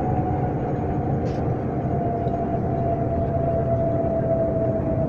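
Passenger train running with a steady rumble and a single whine that slowly falls in pitch.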